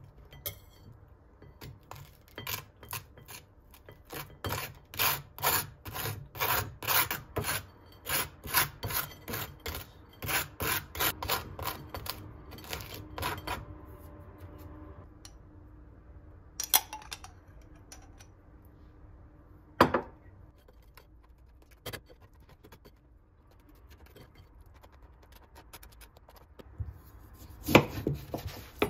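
Table knife scraping butter across dry toast in quick rasping strokes, about two a second, for roughly twelve seconds. After that, a few single clicks, and near the end a knife cutting through an orange onto a wooden cutting board.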